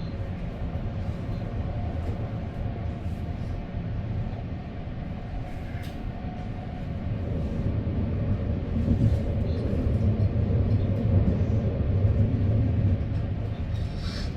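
Moving passenger train: a steady low rumble with a faint hum, growing louder about halfway through.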